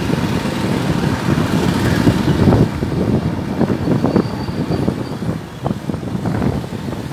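Engine and road noise of a vehicle driving along a street, heard from on board as a loud, uneven low rumble.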